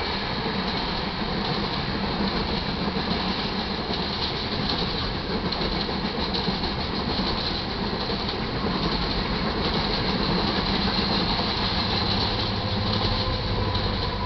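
Iron ore hopper cars rolling past, wheels clattering steadily over the rails. Near the end the rear distributed-power locomotive, an EMD SD70MAC, comes alongside and its diesel engine adds a low steady drone.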